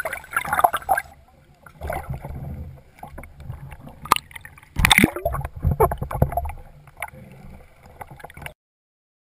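Water sloshing and gurgling around a submerged camera, with a low rumble and a few sharp knocks about four and five seconds in; the sound cuts off suddenly near the end.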